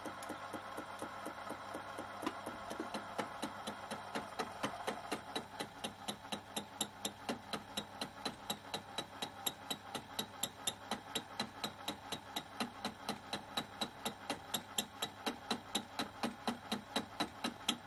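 Lathe-mounted milling cutter cutting a groove into a metal block held in a milling vise: a steady machine hum with a regular tick about four to five times a second from the interrupted cut. The ticks grow louder and more distinct after about four seconds.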